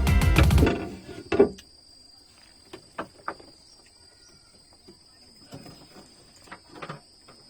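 Background music ending within the first second, then a steady high-pitched drone of insects at two pitches, with scattered short knocks and taps, the loudest about a second and a half in.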